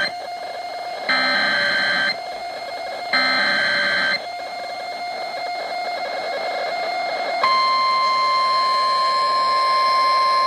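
Mock Emergency Alert System broadcast: the end of one data burst and two more one-second bursts of screechy digital header tones, a second apart, then about three seconds later the steady National Weather Service 1050 Hz attention tone sounds, over a steady background hum.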